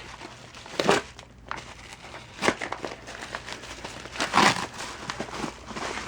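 Packaging crinkling and rustling as it is handled, in several short bursts, the loudest about four and a half seconds in.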